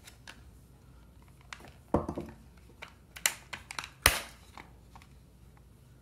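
Plastic case of a Garmin Drive 51 LM GPS being pried open by hand: a series of sharp clicks and snaps as its hidden plastic latches pop loose, the loudest snap a little after four seconds in.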